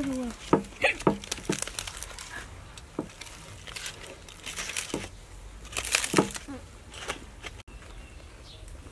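Aluminium foil crinkling and crackling as hands unwrap a grilled foil packet, in irregular bursts, loudest about a second in and again around five and six seconds in.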